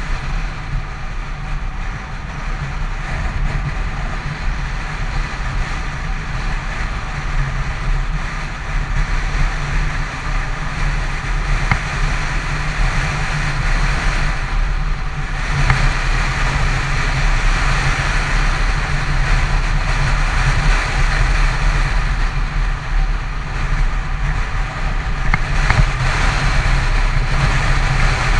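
Yamaha FZ6 motorcycle cruising steadily at highway speed: the inline-four engine's steady drone under a constant rush of wind and tyre noise, growing a little louder about halfway through.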